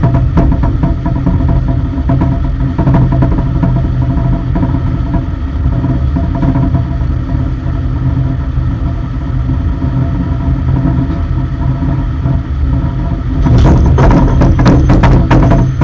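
Engine of an aircraft lower deck cargo loader running steadily with a low hum and a few held tones. There is a burst of rattling and knocking near the end.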